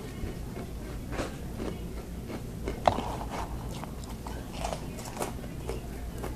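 Crunchy spicy snacks, Cheez-It crackers and Crunchy Cheetos, being chewed close to the microphone, with scattered irregular crunches and one sharper click about three seconds in.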